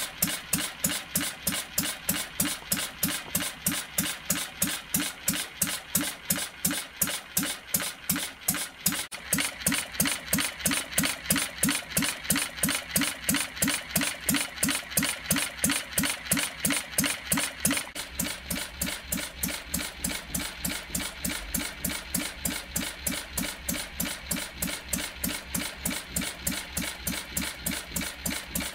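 Scratch-built model four-stroke horizontal gas engine, modelled on a Crossley M type and running on lighter gas with spark ignition, running steadily with a regular beat of about three a second.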